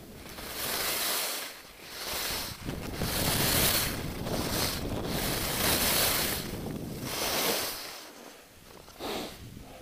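Rushing wind on the skier's camera microphone mixed with the hiss of skis sliding over groomed snow, swelling and fading in surges.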